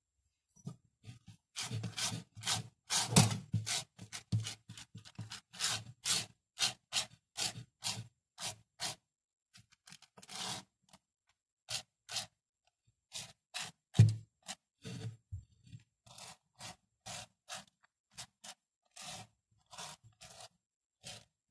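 Irregular scraping and rubbing noises, about one or two a second, with a single louder knock about fourteen seconds in.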